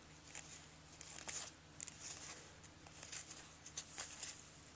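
Faint, intermittent rustling and small clicks of baseball trading cards and their pack being handled.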